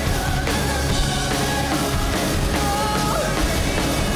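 Live rock band with a full orchestra playing, drum kit prominent, with a long held note coming in about two and a half seconds in.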